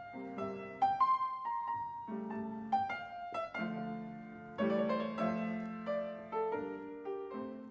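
Solo piano music: a melody of single struck notes over ringing lower chords, at an unhurried pace.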